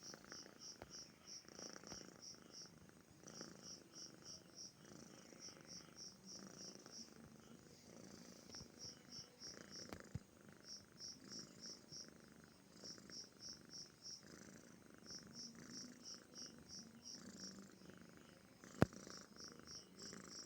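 A domestic kampung cat purring softly and steadily, the purr swelling and fading with each breath: a contented cat. High rapid chirping, like crickets, runs in the background, with a sharp click about ten seconds in and another near the end.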